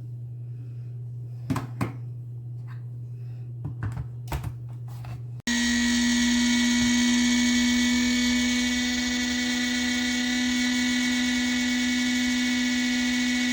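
A low steady hum with a few short knocks and clicks, then an abrupt cut about five seconds in to a small electric motor running with a loud, steady high-pitched whine.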